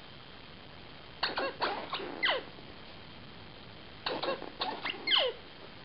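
A dog chewing a squeaky toy: two runs of short squeaks, about four and then about five, each squeak dropping in pitch.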